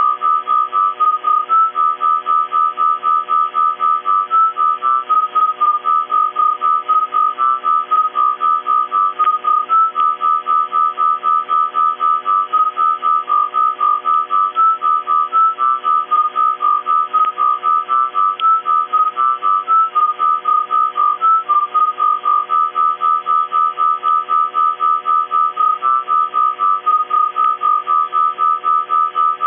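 Radio signal picked up by a ferrite rod antenna and played through an iPhone's microphone input: a whistling tone that hops between two close pitches and pulses about four times a second, over a steady electrical hum.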